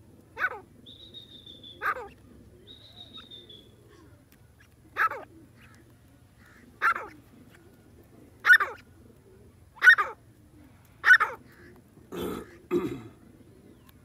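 Francolin (teetar) calling: a run of short, sharp calls about one every one to two seconds, the last two lower and rougher. A thin, high whistle sounds faintly twice early on.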